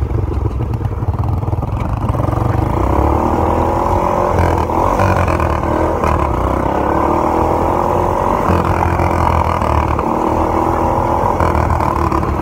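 Racing lawn mower engine revving up and running hard at racing speed. Its pitch climbs from about two seconds in, then holds high with small rises and dips, over a rough rumble from the ride.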